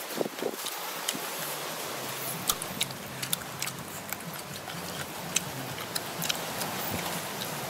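Eating and food-handling sounds: many light, irregular clicks and taps over a steady background hiss.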